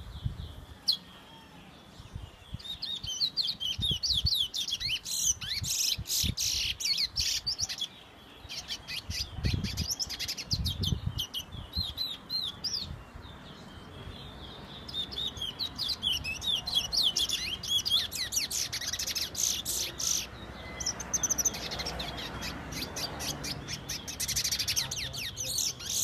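A towa towa (chestnut-bellied seed finch) singing: rapid, high, warbling whistled phrases of quick rising and falling notes, in several bouts with short pauses between.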